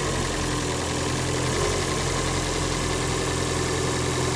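2009 Toyota Prius with its 1.5-litre four-cylinder engine idling, an even, unchanging hum with no revving.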